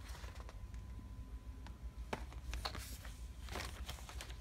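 Faint handling noises of a sticker decal sheet and plastic parts bags: a few light, scattered clicks and brief soft rustles over a low steady hum.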